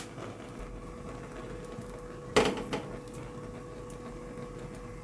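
A brief clatter of kitchenware at the stove about halfway through, with a smaller knock just after, over a faint steady hum.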